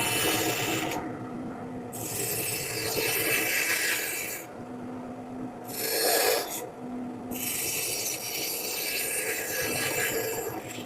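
Carving tool cutting into a woodblock, scraping strokes in stretches of a few seconds with short pauses between.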